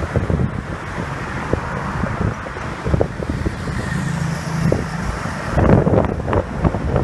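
Open speedboat under way: steady engine rumble and wind on the microphone, with a louder cluster of thumps about six seconds in.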